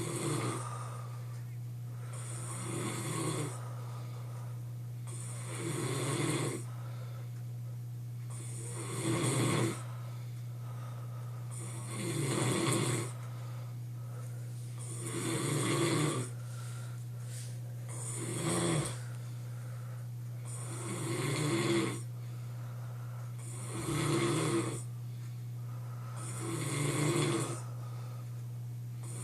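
A man snoring in his sleep, one snore about every three seconds, each lasting about a second, over a steady low hum.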